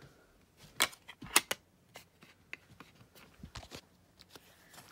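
Handling noise: a few sharp light clicks and taps, loudest about a second and a half in, with faint rustling between them as things are picked up and moved about.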